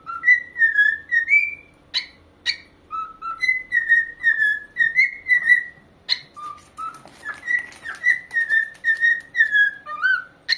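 Pet corella whistling a tune: a run of short whistled notes that slide up and down around one pitch, broken by a few sharp clicks.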